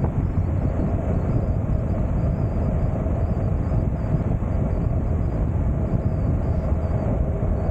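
Manual 2019 Honda NC750X, a 745 cc parallel twin, riding at a steady speed: the engine running evenly under heavy wind rush on the camera microphone.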